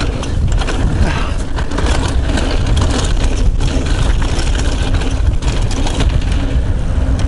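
Wind rumble on the microphone and tyre noise on dirt as a Yeti SB75 mountain bike rolls down a trail, with frequent small rattles and knocks from the bike over bumps.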